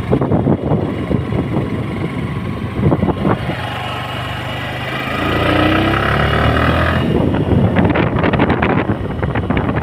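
Suzuki Gixxer SF 250 motorcycle's single-cylinder engine running, its pitch rising for a second or two about halfway through as it revs up.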